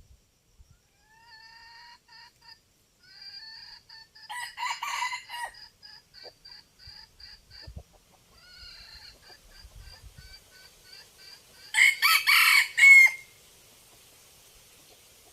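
Rooster crowing twice, about four seconds in and again, loudest, around twelve seconds in, over a long run of short, evenly repeated clucking notes.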